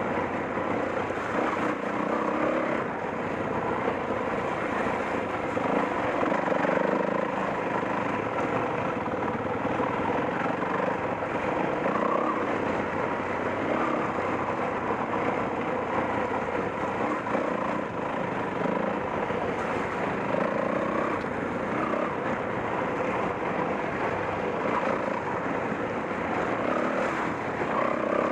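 Off-road motorcycle engine running as the bike is ridden, its note rising and falling.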